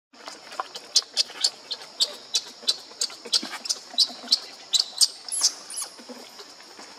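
Newborn macaque crying: a quick run of short, high-pitched squeaks, about three a second, with a couple of longer rising-and-falling squeals near the end.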